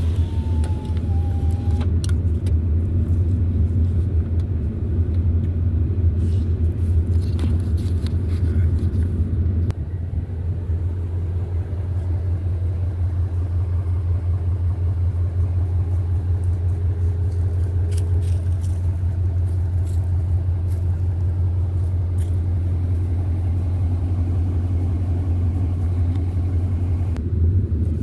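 Steady low rumble of a vehicle in motion, with faint scattered rattles and ticks.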